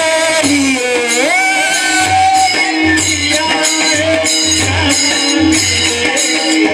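Marathi kirtan devotional singing: a voice sings an ornamented, gliding melody over a steady held note, kept in rhythm by jingling hand cymbals and a drum.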